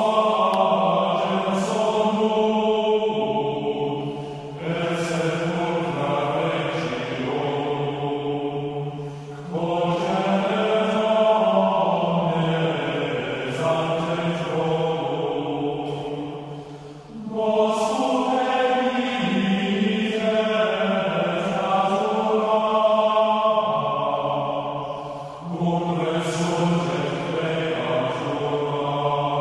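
Chanting voices singing long held phrases as background music, each phrase dropping away briefly before the next begins every five to eight seconds.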